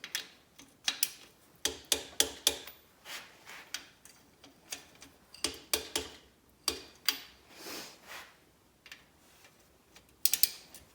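Wrench ratcheting on the cylinder head nuts of a VW Type 1 1600 engine as they are torqued down: sharp metal clicks in short, irregular runs, with pauses between them.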